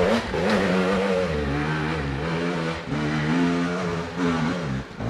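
Enduro motorcycle engine revving under throttle, its pitch rising and falling repeatedly, with brief drops in revs a few times in the second half.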